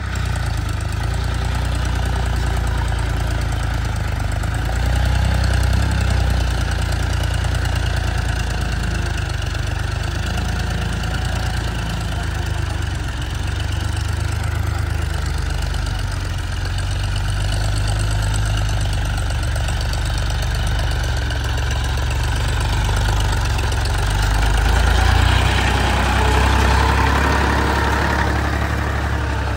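Powertrac 439 DS tractor's three-cylinder diesel engine running steadily under load while pulling a cultivator through tilled soil, getting louder near the end as it passes close by.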